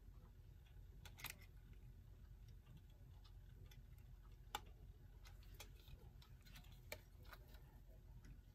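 Near silence with a few faint, irregularly spaced small clicks as a tool pries at a clock's friction-fit second hand, which is stiff to come off.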